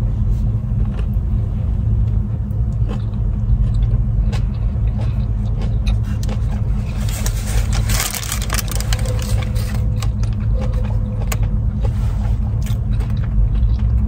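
Steady low rumble of a car's engine idling, heard inside the cabin. About seven to eight seconds in, a paper sandwich wrapper rustles briefly.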